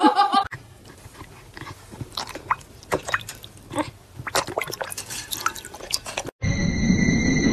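A dog lapping water from a ceramic bowl: a quick, irregular run of small wet laps and clicks. About six seconds in it cuts off, and a louder steady rushing noise with high steady tones takes over.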